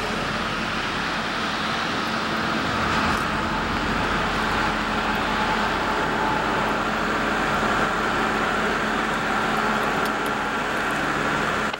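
Diesel work-train locomotives running steadily under a constant wash of traffic noise, with a faint steady hum throughout.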